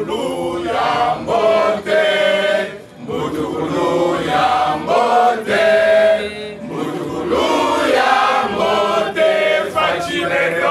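A crowd of men and women singing a chant together, unaccompanied, in long held phrases with a short break about three seconds in.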